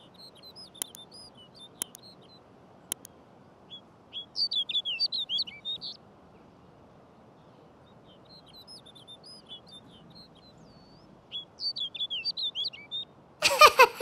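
Snow bunting singing: two loud, short warbled song phrases, with softer twittering between them. Three sharp clicks come in the first three seconds, and a loud falling-pitched sound effect starts just before the end.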